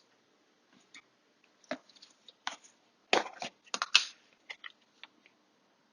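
A scatter of short, light clicks and taps of a spoon on a spice container and cooking pot as turmeric powder is added, the busiest cluster about three to four seconds in.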